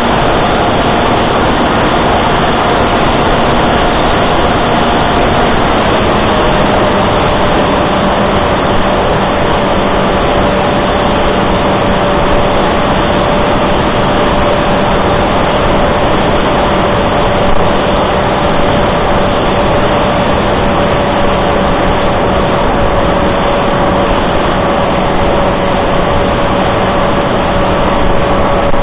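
Electric motor and propeller of a Reptile S800 RC plane running steadily in flight, heard from the onboard camera with heavy airflow rush over its microphone. The motor's steady whine drops slightly in pitch about six seconds in, as the throttle eases back.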